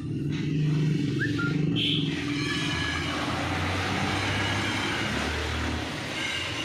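An engine or motor starting abruptly and running steadily with a low, fast-pulsing hum.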